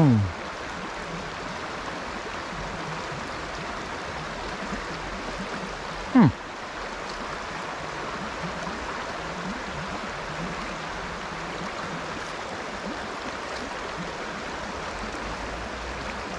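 Steady rush of flowing stream water. About six seconds in, a short, loud sound falls sharply in pitch.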